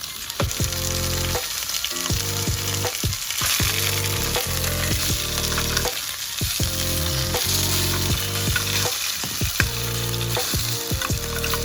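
Food frying in hot oil, a steady crackling sizzle, with light background music.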